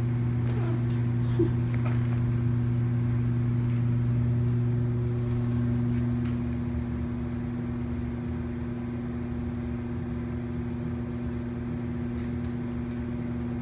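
Steady low hum with a few layered tones, dropping a little in level about halfway through, with a few faint ticks over it.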